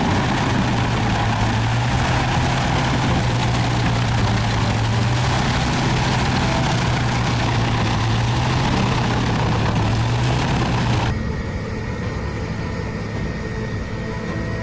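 Heavy machine engine running steadily under load, a constant low drone with dense noise over it. About eleven seconds in it cuts suddenly to a quieter, steady engine hum.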